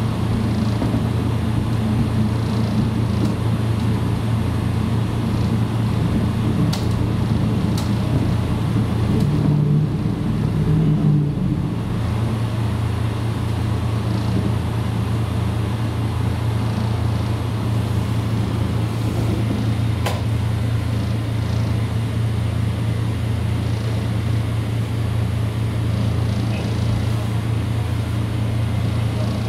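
KiHa 54 diesel railcar heard from inside its passenger cabin, the diesel engine running with a steady low hum as the car slows into a station and comes to a stop, settling to an idle. A few sharp clicks sound along the way.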